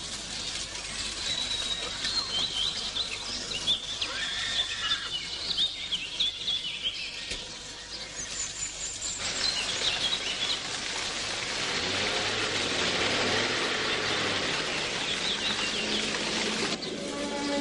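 Woodland birds singing in short chirps and trills. After about nine seconds a steady rushing noise swells over them, and near the end sustained music notes come in.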